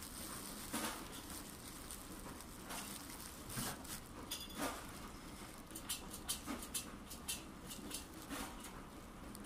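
Plastic poly mailer bag crinkling and rustling as hands work it open, in scattered short crackles that come thickest a little past the middle.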